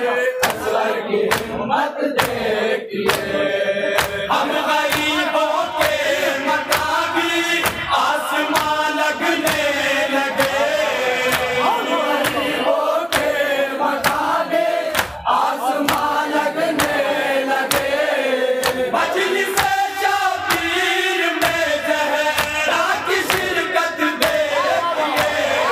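Men chanting a salam, a Shia devotional elegy, in chorus into a microphone, over a steady beat of strikes from mourners beating their chests in matam.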